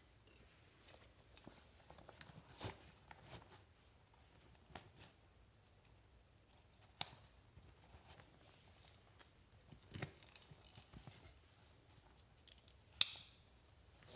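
Nylon boot carrier being fitted over motocross boots: fabric rustling and a webbing strap being pulled through, with scattered small clicks. A sharp click near the end is the plastic buckle snapping shut.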